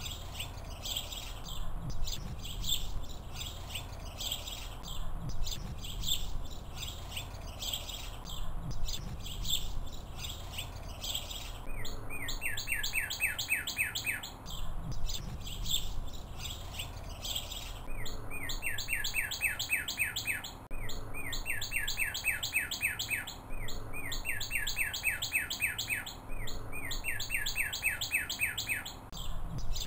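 Birds singing outdoors. For the first twelve seconds short calls repeat about once a second. From about twelve seconds in, a bird gives rapid trills of two to three seconds each, repeated five times, over a low steady rumble.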